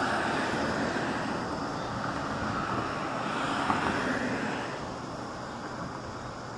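Steady rushing noise of passing road vehicles that swells and then fades about five seconds in.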